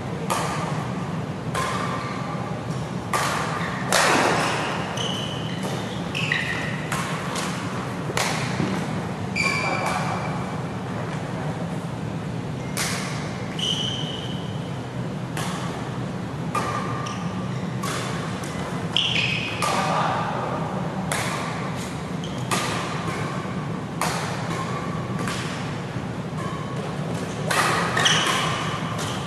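Badminton rackets striking a shuttlecock in a doubles rally, an irregular run of sharp smacks, with short high squeaks of shoes on the court mat and a steady low hum underneath.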